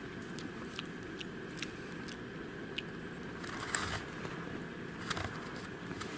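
Campfire crackling: sharp pops scattered over a steady low rush. A louder crackling crunch comes about three and a half seconds in, and a shorter one around five seconds.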